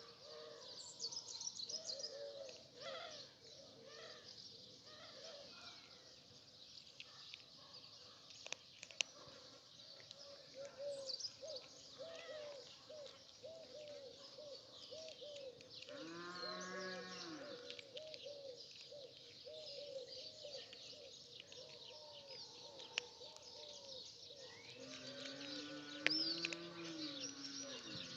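Birds chirping and twittering over a steady run of short, repeated low cooing notes, typical of pigeons or doves. Two long, drawn-out animal calls stand out above them, one about halfway through and one near the end.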